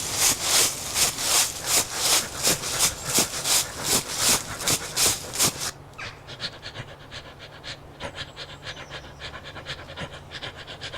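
A man panting heavily while running, loud rhythmic breaths at about two a second. A little under six seconds in, it cuts to a quieter, quicker rhythm over a low steady hum.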